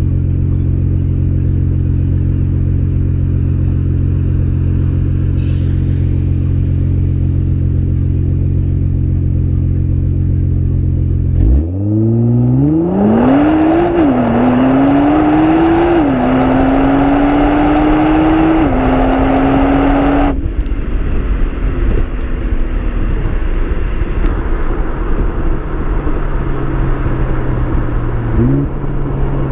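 Stock 2015 Nissan GT-R's twin-turbo 3.8-litre V6 idling steadily, then accelerating at wide-open throttle about eleven seconds in. The engine note climbs and drops back at each of several quick upshifts, then eases off to a lighter, rougher run with a brief rev near the end.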